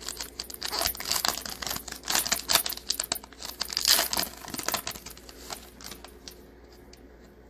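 A foil trading-card pack wrapper being torn open and crinkled by hand, a dense crackle that dies down about five seconds in.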